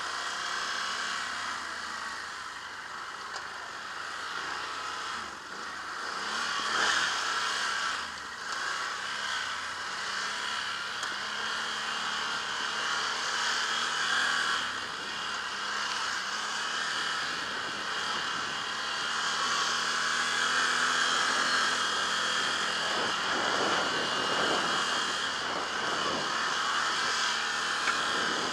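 ATV engine running as the quad rides a rough dirt trail, its engine speed rising and falling. About three-quarters of the way through come a series of knocks and rattles.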